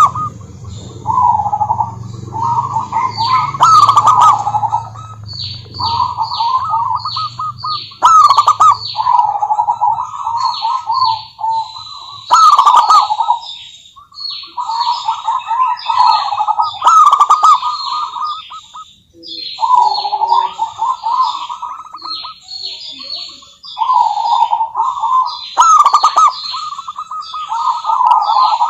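Zebra doves (perkutut) cooing in repeated rapid, staccato phrases, each lasting a second or two, over a steady stream of short, higher falling chirps from other small birds. A low hum fades out in the first few seconds.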